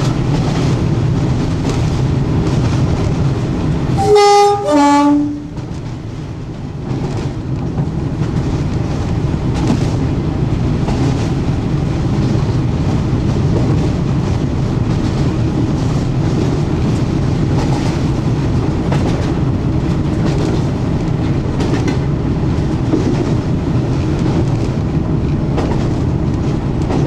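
Cab of the Class 52 'Western' diesel-hydraulic locomotive D1013 Western Ranger under way: its twin Maybach engines run with a steady drone, and the wheels click over the rail joints. About four seconds in, the two-tone horn sounds, a high note and then a lower one. After the horn the engine noise drops for a moment and then builds again.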